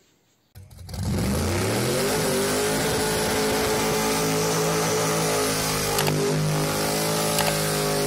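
Car engine revving up about half a second in, then held at high, steady revs during a burnout, with a steady hiss from the spinning tyres.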